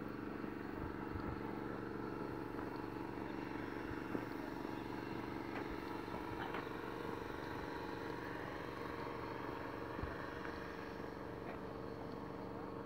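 Steady low hum of distant road traffic, with a few faint taps.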